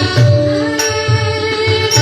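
Devotional bhajan music with sustained melody tones over a steady low drum beat, with a sharp high stroke about once a second.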